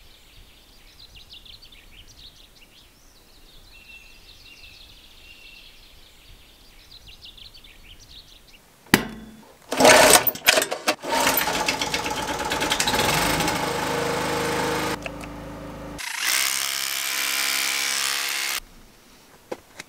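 Faint high chirping for the first nine seconds. Then an Einhell portable generator starts with a click and a few loud irregular bursts and runs steadily. Near the end an electric chipping hammer chisels into a concrete tank wall for about two seconds.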